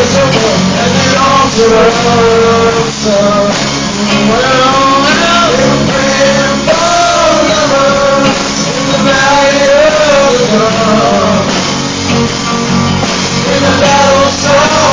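A small live band playing a slow rock-country number on drums, bass guitar and acoustic guitar, with a wavering melody line over the top throughout.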